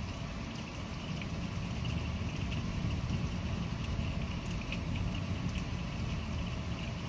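Rain falling in a thunderstorm, with scattered ticks of drops over a steady low rumble.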